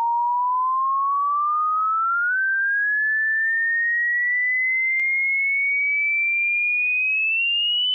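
Pure sine test tone gliding slowly and steadily upward in pitch, from a middling whistle to a high, thin one: a frequency sweep for a hearing test.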